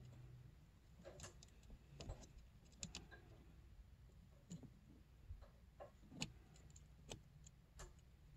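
Near silence broken by faint, scattered clicks and small taps, about a dozen, the loudest about six seconds in: digital calipers being handled and set against a snowmobile power valve cable end to measure it.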